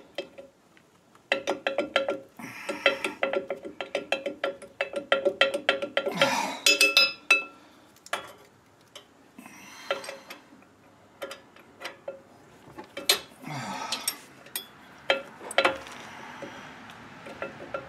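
Rapid metallic clicking and clinking as the brake-line fitting and wheel cylinder are worked by hand against a steel drum-brake backing plate, which rings with each tick. The clicking is dense in the first several seconds, then comes as scattered single clicks.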